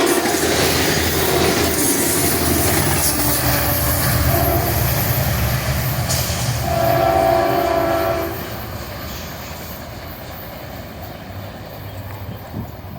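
A train passing with a steady rumble and wheel noise; its horn sounds a chord briefly, faintly around three seconds in and more clearly about seven seconds in. The noise fades after about eight seconds.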